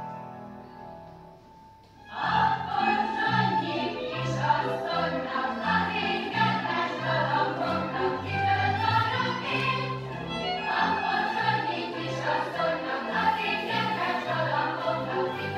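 Music for a couples' dance: a held chord fades out over the first two seconds, then a new piece with choral singing and orchestra starts suddenly at full volume and plays on.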